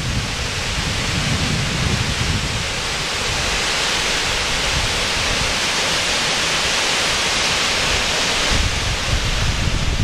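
Waterfall running: the steady, hissing rush of a tall cascade of water falling down a rock cliff. Gusts of wind buffet the microphone with a low, uneven rumble in the first couple of seconds and again from about eight and a half seconds in.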